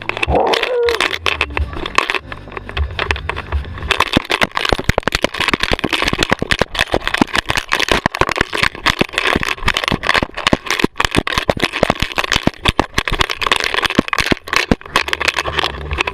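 Handling noise from a GoPro worn by a dog as it runs and plays fetch: a low rumble at first, then from about four seconds in a dense, irregular clatter of clicks and knocks from the jostled camera and its mount.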